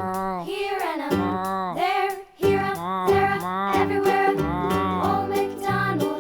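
Background music: an upbeat melody with a bass line and a bending, sung-like lead, breaking off briefly about two seconds in.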